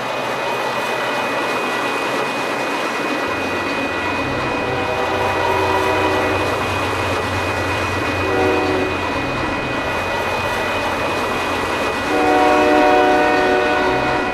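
Steam locomotive running with a heavy rumble and a steady high tone over the noise. Its chime whistle sounds a few seconds in, again briefly past the middle, and in a longer blast near the end.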